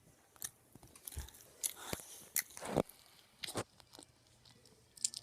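Biting and chewing on fried dough, with a few scattered crunches.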